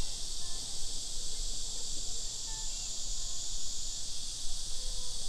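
Steady high-pitched insect chorus, with a few short, faint bird chirps.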